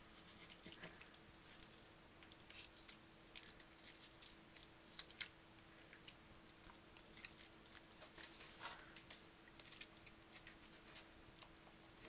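Faint, irregular small clicks and scrapes of a boning knife cutting raw chicken flesh away from the thigh bone on a plastic cutting board.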